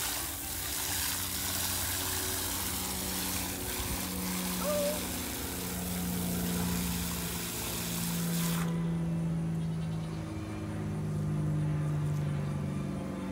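Water spraying from a garden hose nozzle into a plastic bucket, a steady hiss that cuts off suddenly about two-thirds of the way through as the nozzle is released. A low hum that changes pitch every second or two runs under it.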